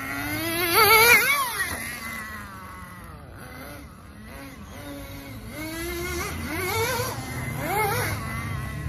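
Small glow-fuel RC truck engine revving up and down as the truck drives, a high rising and falling whine. It is loudest about a second in and revs again several times from about six to eight seconds in.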